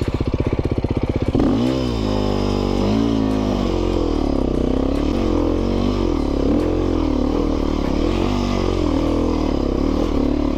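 Dirt bike engine idling with a steady beat, then from about a second and a half in revved up and down repeatedly under the throttle, its pitch rising and falling over and over.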